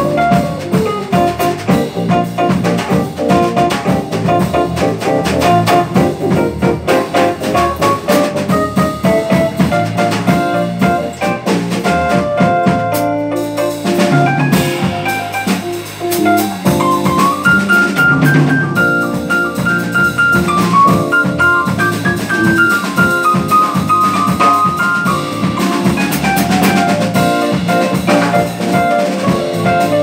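Live jazz quartet playing: drum kit, piano and electric bass, with a melody on a wind instrument on top. The melody climbs to a higher, held passage a little past halfway.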